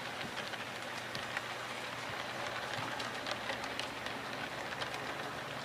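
HO scale model passenger cars rolling along the track: a steady rolling hiss full of small irregular clicks from the wheels on the rails, over a low steady hum.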